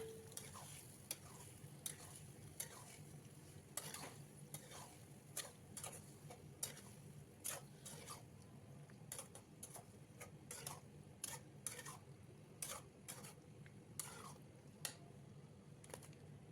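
Faint, irregular clinks and taps of a kitchen utensil against cookware, roughly one or two a second, as in stirring.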